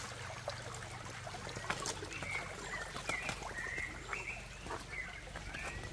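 A bird calling outdoors: a string of short, high chirps, some sliding upward, through the second half, over faint scattered clicks.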